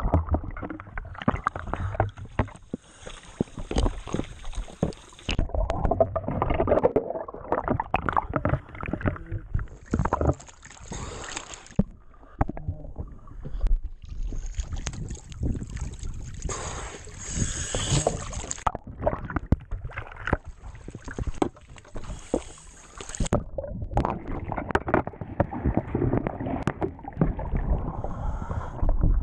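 Water sloshing and splashing around an action camera as it moves at the waterline and dips below the surface, with irregular rushes of noise that go muffled under water.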